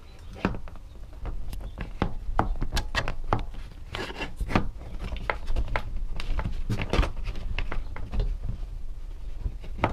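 A metal L-shaped roof pin scraping and clicking against the hard resin roof panels of a plastic storage shed as it is worked through the panel holes, with many irregular knocks and rubs of plastic.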